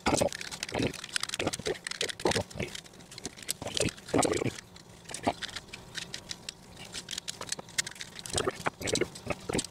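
Hands working a chainsaw's recoil starter, rope and pulley: irregular clicks, knocks and short rasps as the wrongly wound rope is taken off to be rewound.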